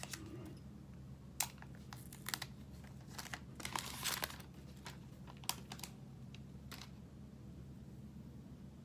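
Plastic packaging crinkling and rustling as a phone box and its contents are handled, with a few sharp clicks and a longer rustle about four seconds in.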